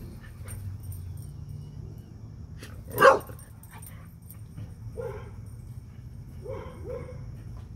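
A dog barking: one loud bark about three seconds in, then three quieter barks in the last three seconds, over a steady low hum.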